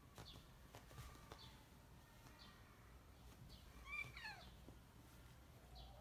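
A kitten gives a short, quiet mew that falls in pitch about four seconds in, calling for something out of its reach. Faint short high chirps repeat every second or so.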